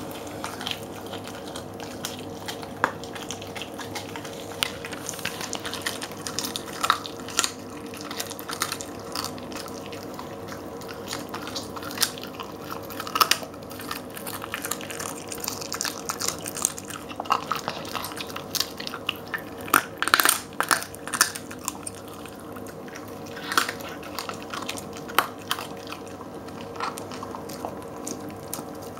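Jack Russell terrier chewing and crunching a raw turkey neck, with irregular wet chomps and sharp cracks of bone, loudest about two-thirds of the way through.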